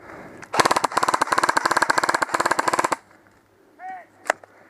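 Airsoft rifle firing a rapid full-auto burst of evenly spaced shots, about two and a half seconds long. A single sharp click follows about a second later.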